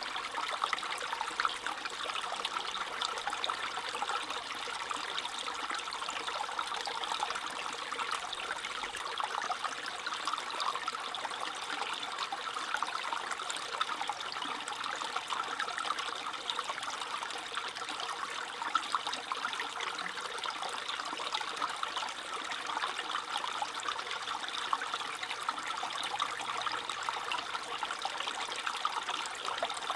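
Small stream trickling and babbling steadily over stones, a continuous bright splashing with constant fine gurgles.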